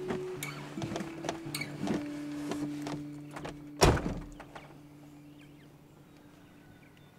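Pickup truck passenger door being opened, with clicks and rustling as a child climbs out, then slammed shut once, loudly, about four seconds in.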